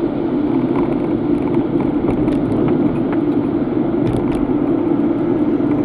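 Car cabin noise while driving at steady speed: a constant low rumble of engine and tyres on the road, with a few faint light clicks.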